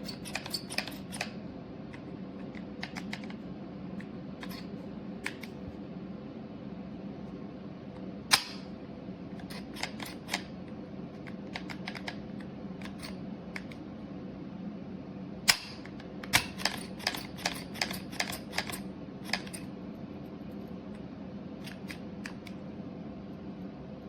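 Scattered sharp clicks and taps, some in quick runs of several, over a steady low hum.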